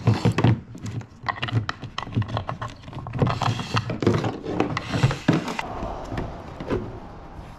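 Power cables being fed through a plastic PVC junction box by hand: an irregular run of knocks, clicks and scraping of wire and connectors against the plastic, dying down about five and a half seconds in.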